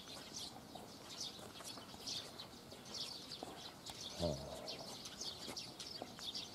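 Small birds chirping, many short high chirps in quick succession, with one brief low voice-like sound about four seconds in.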